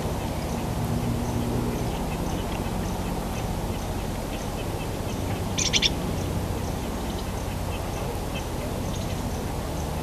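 Acorn woodpecker calling: faint scattered short notes, then a quick loud burst of four or five sharp notes a little past halfway, over a steady low rumble.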